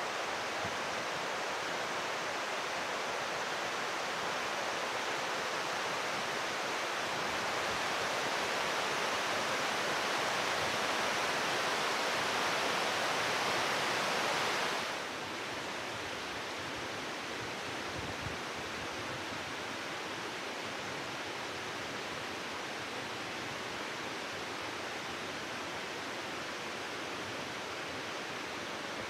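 Steady rush of falling water, even and unbroken, stepping down a little in level about halfway through.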